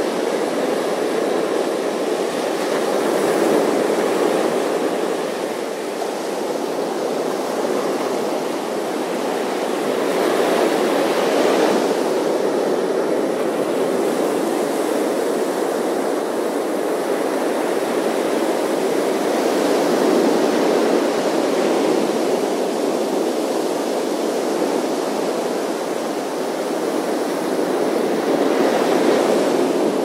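Ocean surf breaking on a sandy beach: a continuous wash of noise that swells each time a wave breaks, about every eight to nine seconds.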